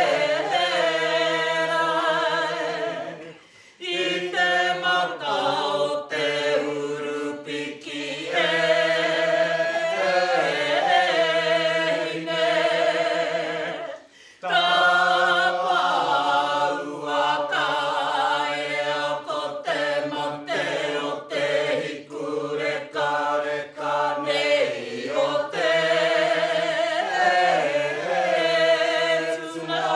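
Group of men and women chanting a mōteatea, traditional Māori sung poetry, in unison without accompaniment. Long, held, wavering phrases are broken by short breath pauses about four seconds and fourteen seconds in.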